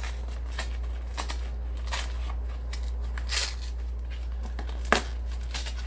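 Cardboard mailer box being torn open piece by piece, its glued flaps ripping in short scraping rustles, with one sharp snap about five seconds in. A steady low hum runs underneath.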